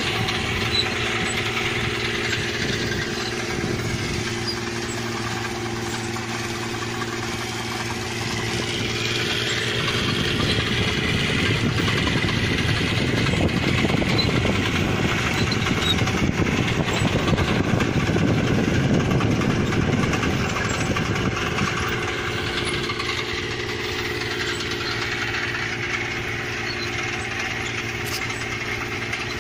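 Rice combine harvester's engine running steadily, growing louder and rougher from about ten seconds in until about twenty seconds in, then settling back.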